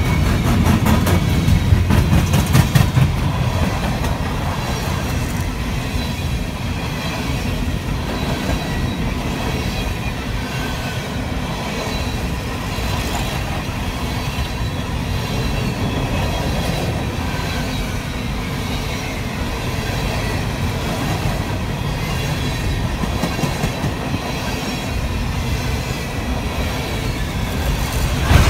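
Freight train of coal cars rolling past close by: a steady rumble of steel wheels on the rail. A run of sharp clacks comes about a second or two in.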